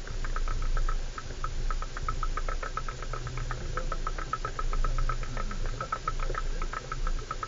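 Inside a 4x4 driving a rough, muddy off-road track: a steady low engine drone under rapid, irregular rattling and knocking, several clicks a second, from loose parts in the cabin jolted by the track.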